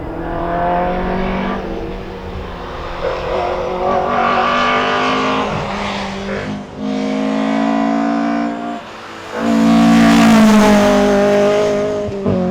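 Fiat Abarth 131 Rallye's four-cylinder engine, heard from inside the car, revving hard through the gears on a rally stage. It pulls up and drops back several times, with brief lifts for gear changes about halfway and about three-quarters of the way through, the loudest pull coming right after the second lift.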